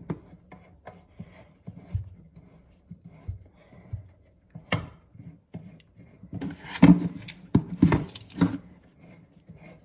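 Hand unscrewing the metal coupling nut of a braided stainless steel toilet supply hose from the fill valve: small clicks and metallic knocks, with a sharp click a little under five seconds in and two clusters of louder handling noise about six and a half to eight and a half seconds in.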